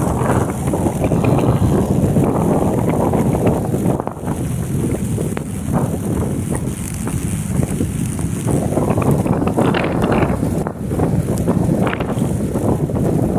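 Wind buffeting the microphone in uneven gusts over the rumble of a moving vehicle.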